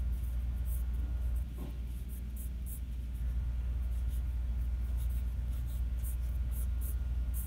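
Mechanical pencil scratching on sketchbook paper in many short, quick strokes, over a steady low hum.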